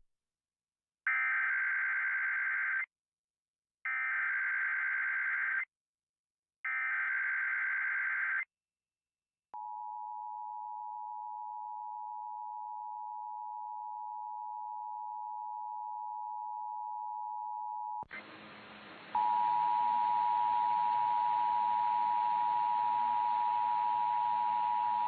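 Emergency Alert System test alert: three short bursts of warbling SAME data-header tones, each under two seconds, then the steady two-tone EAS attention signal. About 18 seconds in the tone breaks off. A second later it comes back louder over a background hiss and keeps going.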